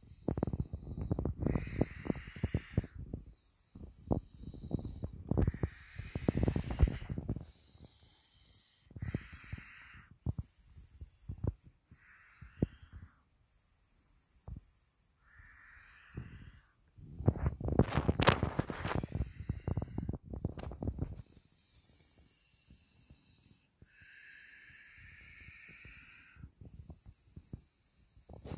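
European adder hissing in a series of breathy hisses, each about a second long and several seconds apart: the defensive warning of an irritable snake. Low rumbling and knocks on the microphone run underneath.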